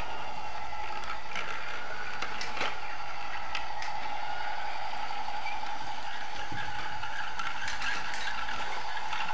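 Battery-powered Lego Duplo toy train's small electric motor whining steadily as the engine runs along the plastic track, with scattered clicks and rattles.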